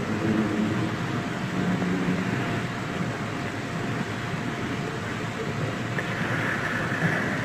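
A pause in a recorded Quran recitation: a steady murmur of room noise with faint voices in the background while the reciter is silent.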